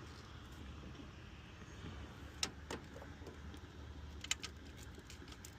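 A few short, sharp clicks and taps of parts being handled while the alternator's wiring connectors are plugged back in: two about halfway through, a quick pair about four seconds in, and fainter ticks, over a low steady hum.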